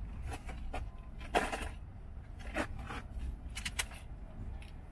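Folding baby stroller being pulled out and opened: a series of clicks, knocks and rattles from its frame, with a short louder scrape about one and a half seconds in, over a low steady rumble.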